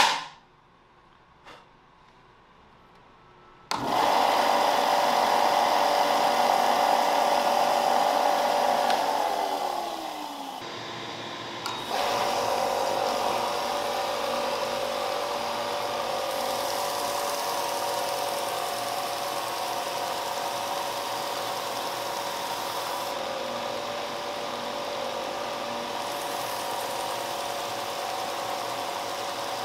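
A sharp click at the very start, then about four seconds in a benchtop belt-and-disc sander's motor starts and runs steadily with a whine. About nine seconds in its sound drops and falls in pitch, then about twelve seconds in it picks up again with a click and runs on steadily.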